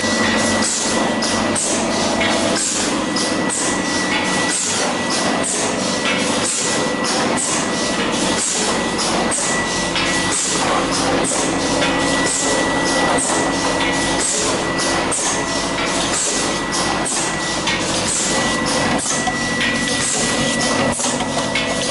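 Automatic tube filling and sealing machine running: a steady mechanical clatter of rapid, repeated clicks and knocks, with short airy hisses and a steady high tone throughout.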